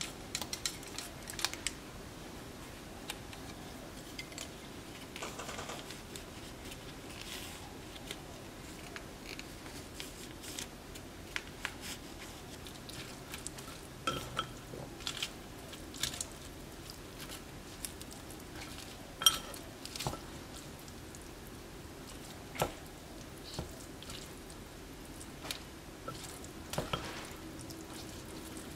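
Wooden chopsticks tossing sauced noodles and lettuce in a ceramic bowl: scattered taps and clicks against the bowl with soft squishing. The sharpest click comes about two-thirds of the way through.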